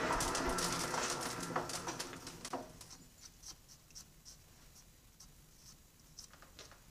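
Metal lathe spinning down after being switched off, its running hum fading away over the first two and a half seconds. After that it is quiet apart from faint light clicks of hands and metal tools at the chuck.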